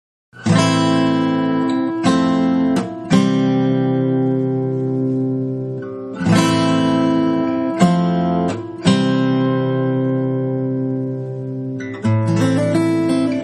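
Background music: acoustic guitar strumming slow chords that ring out, with a busier picking passage near the end.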